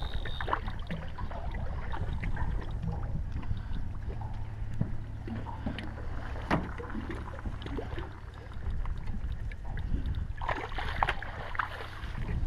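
Water lapping against a small boat's hull with a steady low rumble of wind on the microphone, broken by scattered knocks and clicks while a hooked trout is played to the landing net. Splashing near the end as the fish is netted.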